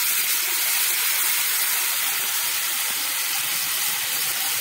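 Sliced onions sizzling in hot oil in a kadai as they brown: a steady, even hiss.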